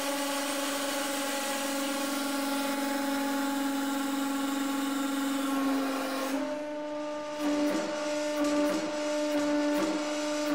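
Hydraulic press pump and motor running under rising load with a steady pitched hum as the ram squeezes a solid steel rod. About six seconds in, the hiss drops away and the hum shifts slightly, then it begins to waver in small irregular swells.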